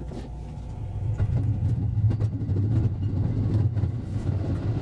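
JR West 223 series electric train running, heard from the cab: a steady low hum that gets louder about a second in, with scattered sharp clicks from the wheels on the track.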